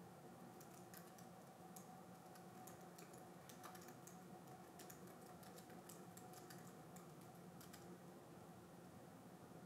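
Faint typing on a laptop keyboard: quick, uneven runs of soft key clicks that stop about eight seconds in, over a faint steady hum.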